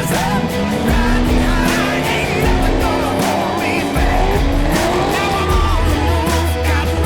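Class 1 off-road desert race car engine revving hard, its pitch climbing in the first second and then holding high, over background music.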